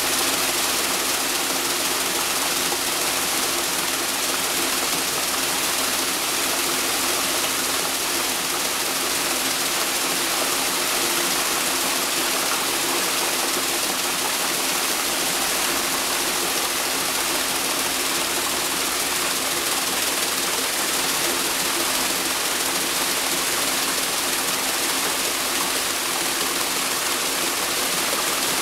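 Four-wheel paddle wheel aerator running: its paddles churn and splash the water in a steady, continuous rush, with a steady hum from its central drive unit underneath.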